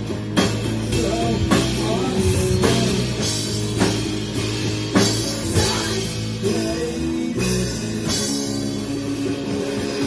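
Rock band playing live: drum kit and guitar, with a sharp drum and cymbal hit about once a second over sustained guitar and bass notes.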